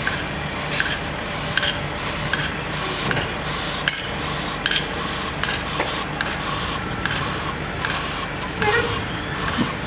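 Sheet piling rig running with a steady mechanical hum, with sharp metallic clinks repeating about every 0.8 s and a louder rattle of clinks near the end.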